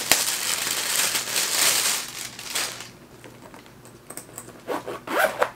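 Thin plastic wrapping being crinkled and pulled off a holographic pouch. It makes a dense crackling for the first two to three seconds, then goes quieter, with a few short rustles near the end.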